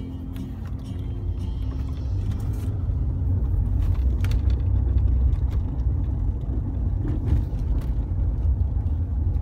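Low rumble of a car driving slowly, heard from inside the cabin, growing louder over the first few seconds.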